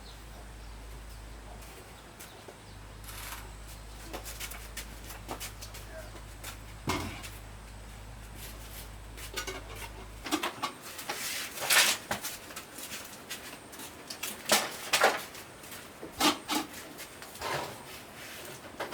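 Irregular knocks and clatter of things being handled, sparse at first and busier and louder from about halfway through. A low steady hum cuts off at about the same point.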